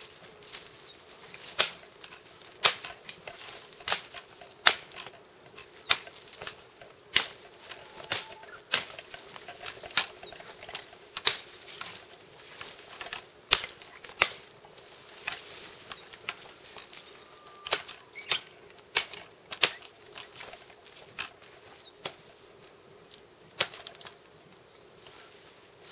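Twigs and branches snapping and cracking as they are handled in brush: sharp, irregular cracks about once or twice a second, with some rustling of foliage between.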